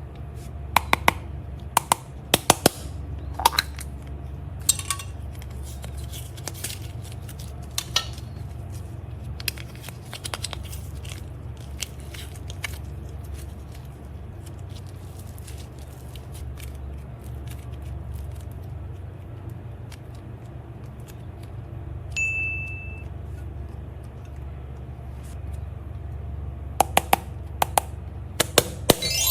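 Sharp clicks and clinks of small hard objects being handled and set down, clustered near the start and again near the end, over a steady low hum. A short single-pitched beep sounds about two-thirds of the way through.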